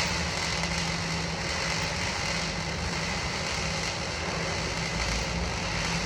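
MIG welding arc: a steady, even crackling hiss, with a low machine hum underneath.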